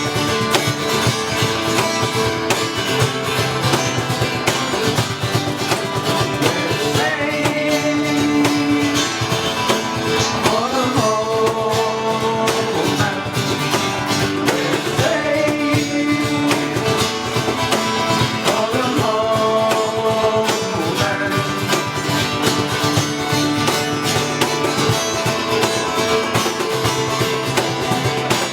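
A live band playing a guitar-driven song, with strummed guitar throughout and a lead melody sliding between held notes through the middle.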